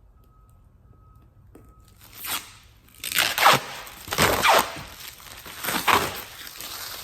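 Protective plastic liner being peeled off the back of an ACM sign panel: a short rip about two seconds in, then several longer ripping pulls, the loudest in the middle.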